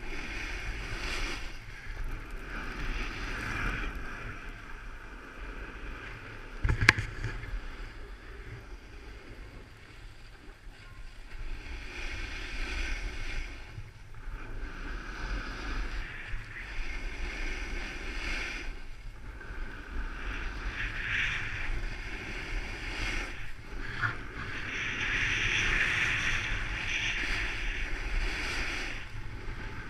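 Hiss of sliding over snow, swelling and fading in repeated waves every few seconds, with wind rumbling on the action camera's microphone. A single sharp knock about seven seconds in.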